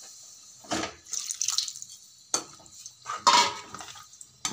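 Water poured into a pan of potato curry and stirred in with a metal slotted spoon. It splashes, and the spoon scrapes and clinks against the pan in several short strokes, the loudest about three seconds in.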